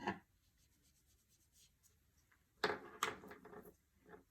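Brush tip rubbing across watercolor paper to blend color, in a few short scratchy strokes clustered a little past halfway and again near the end, after a brief click at the start.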